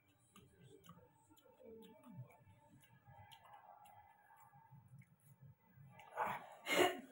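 Faint clicks and soft handling sounds of fingers picking fruit pieces from a plastic bowl and dipping them into sambal in a stone mortar, then a short loud mouth sound near the end.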